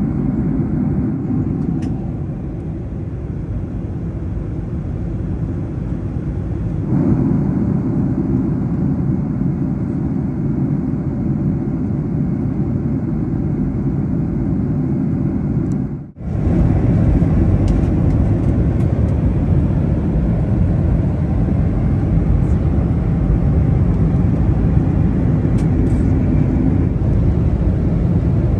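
Steady cabin noise inside a Boeing 737-800 in cruise: the low rushing of engines and airflow heard from a window seat. It drops out for a moment about sixteen seconds in, then carries on.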